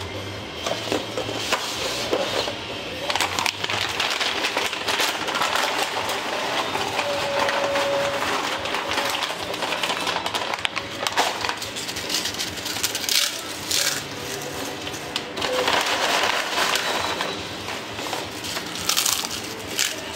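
Plastic tortilla chip bag crinkling as it is torn open, and blue corn tortilla chips crunched and snapped by hand, a dense crackling that starts about a second in.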